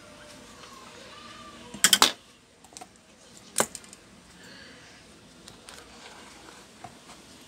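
Clicks and light clatter of small hard objects being handled: a quick cluster of sharp knocks about two seconds in, another single knock a little later, then a few faint taps.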